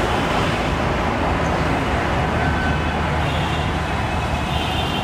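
Steady background noise of road traffic and site machinery, with a low, even engine-like hum underneath.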